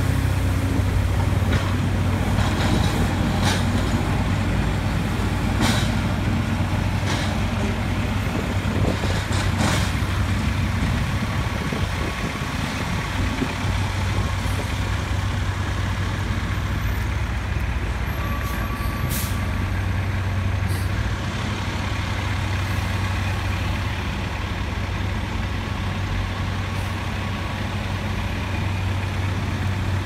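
Heavy diesel engines of a street-milling crew running steadily: a dump truck close by, with the cold-milling machine working beside it. Scattered sharp knocks and clatters come in the first few seconds.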